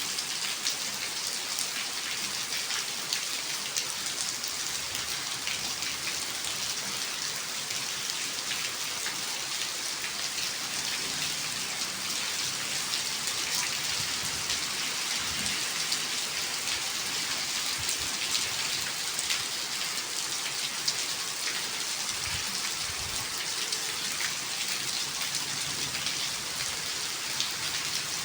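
Steady rain falling: an even hiss of many drops with fine individual drop ticks, unchanging throughout.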